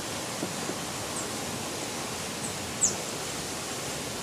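Steady hiss of open-air rural ambience, with a few short, high chirps that fall in pitch, the loudest nearly three seconds in.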